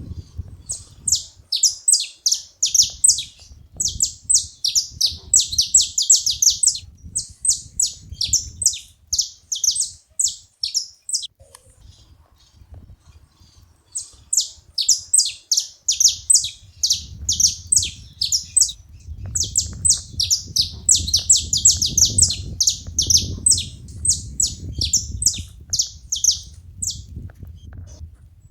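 Saffron finches singing, fast runs of sharp high chirps repeated in phrases a few seconds long with short pauses between. A low rumble joins underneath from about sixteen seconds in.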